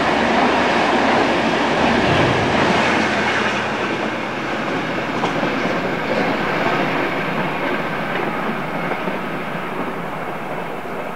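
Intercity train hauled by a General Motors diesel locomotive passing and moving away: the rumble and clatter of its wheels on the rails fade steadily.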